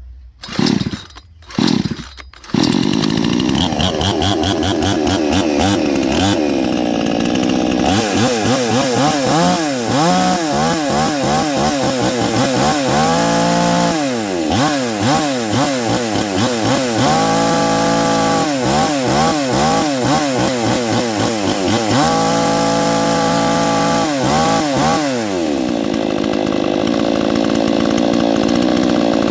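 New two-stroke gas chainsaw on its first start, cold, being pull-started: two short bursts, then it catches and keeps running about two and a half seconds in. The trigger is revved again and again, the engine speed rising and falling as it warms up, and it settles into steady running near the end.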